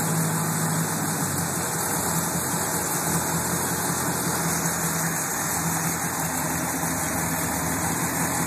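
V8 engine idling steadily, with no revving.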